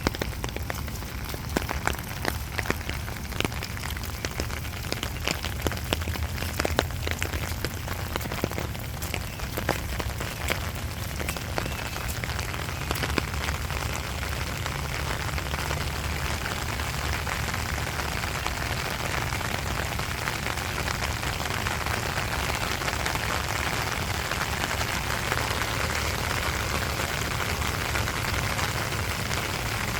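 Rain falling, at first with many separate drops ticking sharply, then about halfway through settling into a denser, steady hiss of heavier rain.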